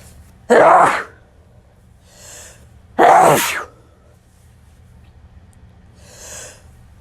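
Two loud, short sneezes about two and a half seconds apart, each with a fainter breath-like sound just before it.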